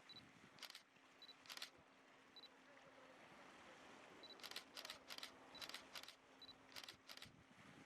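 Faint camera shutter clicks, about eight, some single and some in quick pairs. Several are preceded by a short high beep. A faint steady low hum runs underneath.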